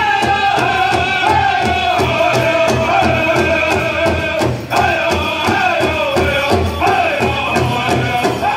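A powwow drum group singing over a steady beat on a large drum. The song's lines fall in pitch and repeat, with a brief break about halfway.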